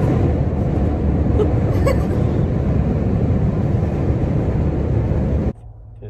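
Steady low rumble of road and engine noise inside a moving car's cabin, cutting off abruptly about five and a half seconds in.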